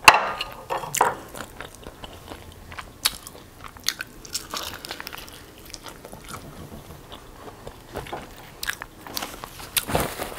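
Close-miked crunching and chewing of crispy fried chicken. A loud crisp bite comes right at the start, then irregular crunches and wet mouth sounds as it is chewed.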